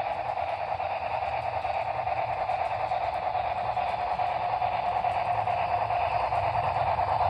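Model cab-forward steam locomotive from Broadway Limited Imports running with its onboard sound, a steady rushing steam sound over a low hum that grows gradually louder as the train approaches.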